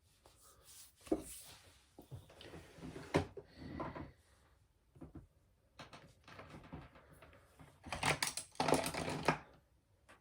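Makeup products being handled: irregular clicks, taps and short rustling scrapes, with a busy run of clicks near the end.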